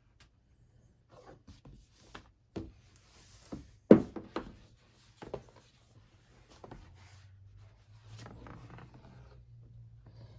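Board-game boxes and card decks being cleared off a table: scattered light knocks as they are set down, the loudest a sharp knock about four seconds in, with sliding and rustling near the end.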